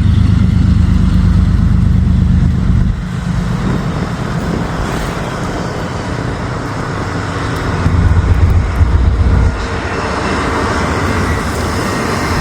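Diesel locomotive engine running under load with a heavy, pulsing low rumble. It eases about three seconds in and swells again about eight seconds in.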